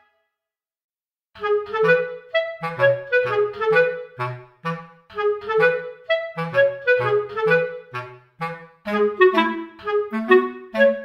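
Background music: a clarinet playing a melody of quick, short notes over lower bass notes, starting after about a second and a half of silence.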